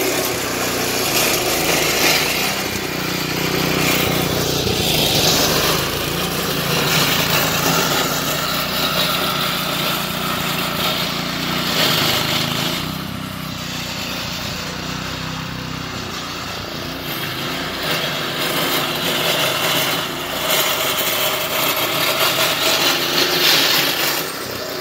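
Billy Goat power rake running under load, its small single-cylinder gas engine humming steadily while the spinning dethatching blades rip through dead grass and thatch. The scraping hiss of the blades swells and fades every few seconds.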